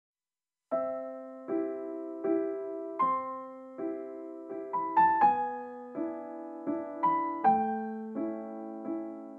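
Background piano music that starts about a second in after a moment of silence: notes and chords struck about every three-quarters of a second, each dying away before the next.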